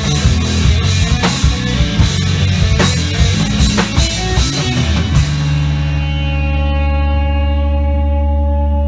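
Rock band playing in a rehearsal room: distorted electric guitars over a drum kit. About five seconds in the drums stop and the final guitar chord rings on from the amplifiers as a steady sustained tone.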